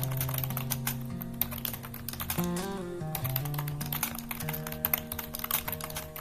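Rapid typing on a keyboard, a dense run of key clicks with a short pause about two and a half seconds in, over background music with held notes.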